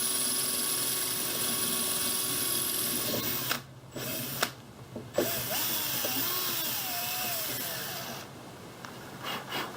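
Power drill with a small bit boring through the kayak's rudder-cable fitting. It runs steadily, stops briefly twice around four and five seconds in, then runs on with a wavering squeal and tails off near the end.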